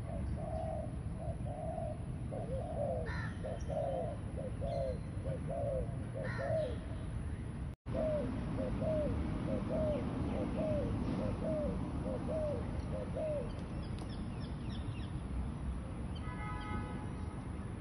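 Spotted doves cooing: a run of short, low coos about two a second. The run breaks off briefly just before 8 s and goes on until about 13 s. Another bird's harsher calls come a few times in the first seven seconds.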